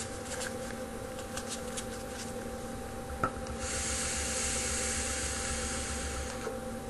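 A click, then about three seconds of steady airy hiss: a drag drawn through a vape mod as its coil fires.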